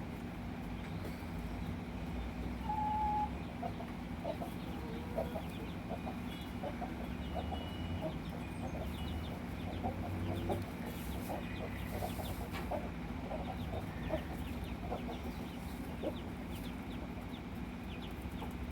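Broody Standard Cochin hens clucking softly and repeatedly with their chicks, with a few short, higher peeps among the clucks and a steady low hum underneath.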